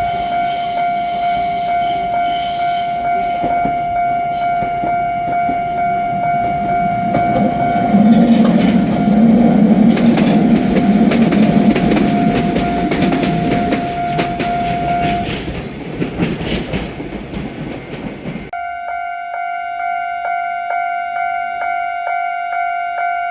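Japanese level-crossing warning bell ringing with its steady rhythmic clang while a Kotoden electric train passes, its rumble and wheel clicks loudest about eight to fourteen seconds in. The bell falls away a few seconds later, then, after a sudden break, rings again with sharper strikes near the end.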